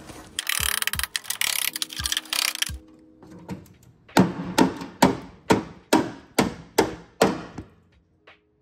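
A hammer striking rusted car-body sheet steel: about eight sharp, evenly spaced blows at roughly two a second, each ringing briefly, knocking at an old patch plate over rotten metal. Before them, a couple of seconds of harsh metal scraping and rattling.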